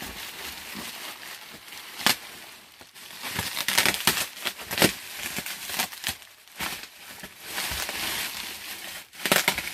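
Plastic bubble wrap crinkling and rustling as it is handled and pulled off a wrapped item, with sharp crackles now and then, the loudest about two, five and nine seconds in.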